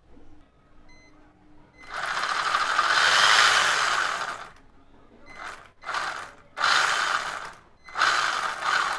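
WLtoys 12428 1/12-scale 4WD RC truck's brushed electric motor and drivetrain whirring under throttle, with the wheels spinning free off the ground. There is one long run of about two and a half seconds, then four short throttle blips.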